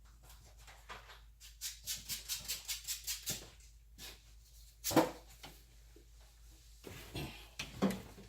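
A quick run of about six short, evenly spaced scraping strokes, about four a second, typical of rubbing with sandpaper, then a single sharp knock about five seconds in and a few lighter knocks and rustles near the end.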